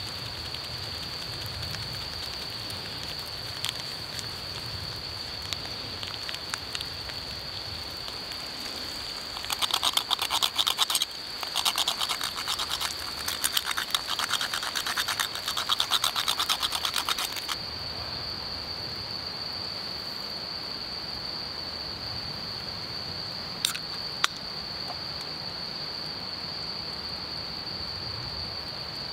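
A hand grater rasping quickly over a pan of mushrooms, in two runs of rapid strokes lasting about eight seconds in all, with a short break after the first second and a half. Two sharp clicks follow near the end.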